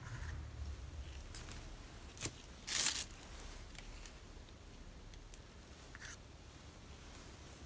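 Close handling sounds of art supplies: a sharp click about two seconds in, then a brief scraping rustle, the loudest sound, with a few faint ticks after.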